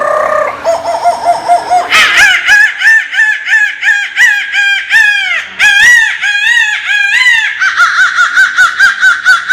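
A woman's imitation of a bird call: a short warbling note, then a long run of quick, rising-and-falling chirps, speeding up into a fast, even trill near the end.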